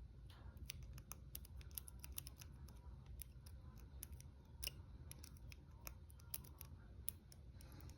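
Faint, irregular metallic clicks and scratches of a lock pick and tension wrench working the pins of a small 20 mm brass padlock, with a few sharper clicks about five, six and a half and seven seconds in. A low steady hum sits underneath.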